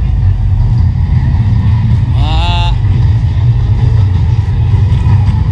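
Steady loud low rumble of a moving road vehicle's engine and road noise. About two seconds in, a brief pitched sound rises and then holds for half a second.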